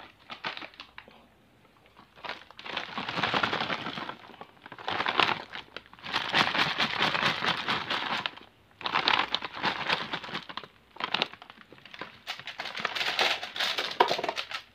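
Plastic candy bag crinkling as it is handled and tipped, with individually wrapped sweets rattling and spilling out. The sound comes in several crackly bursts with short pauses between.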